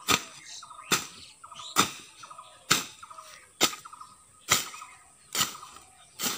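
A long-handled hand blade slashing through grass and weeds in a steady rhythm, about one sharp cutting stroke a second, eight strokes in all.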